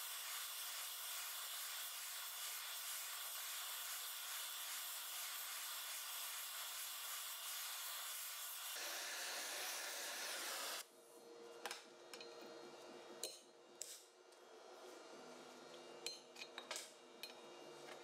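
Gas torch hissing steadily while it preheats a bore for a shrink-fitted bushing, cutting off suddenly about eleven seconds in. After that, a few light metallic clicks and taps.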